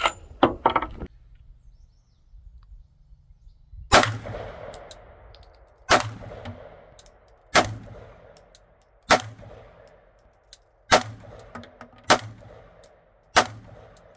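Seven pistol shots fired one at a time, roughly one and a half seconds apart, each followed by a ringing clang from a steel target being hit.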